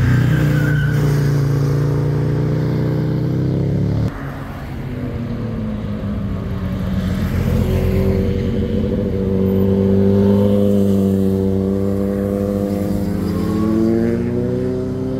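Motorcycle engines on a hairpin bend. One bike is loudest at the start; after an abrupt cut about four seconds in, another motorcycle's engine comes through the curve, its revs rising and falling.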